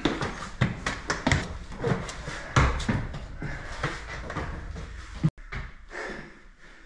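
Footsteps and irregular knocks and thumps on wooden stairs as luggage is carried up a stairwell. The sound cuts off suddenly about five seconds in and is quieter after.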